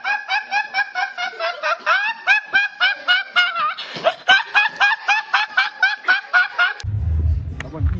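A teenage boy laughing hard in rapid, high-pitched, breathy bursts, several a second. The laugh cuts off suddenly near the end and a low steady hum takes over.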